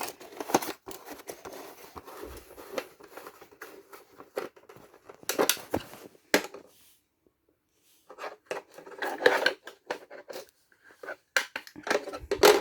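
Handling noise from a small robot sweeper's plastic dust compartment being opened and searched: irregular clicks, scrapes and rustles, pausing for about a second partway through.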